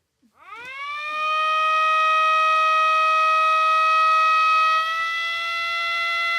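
Air raid siren winding up from silence to a steady wail within about a second, then holding one pitch. Near the end it dips briefly in loudness and the pitch creeps slightly higher.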